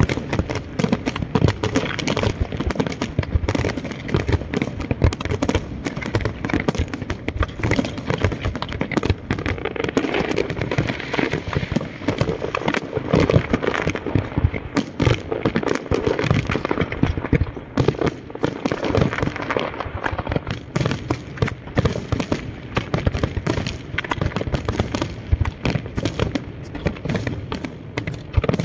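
Fireworks display: aerial shells bursting in quick succession, a dense run of overlapping bangs and crackles.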